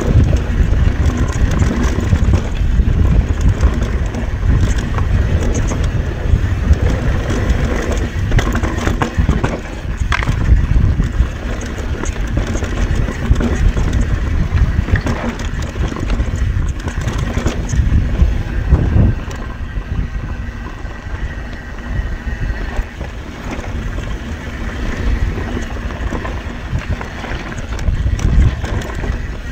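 Mountain bike descending a rough dirt trail at speed: wind buffeting the action camera's microphone over a constant rumble of tyres on dirt and rocks, with frequent rattles and knocks from the bike's chain, frame and suspension.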